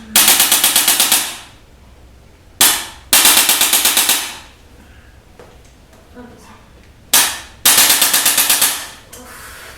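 Chiropractic adjusting gun firing three times: each volley is a rapid rattle of about ten sharp taps a second, lasting about a second and fading out, the last two each set off by a single sharp click about half a second before.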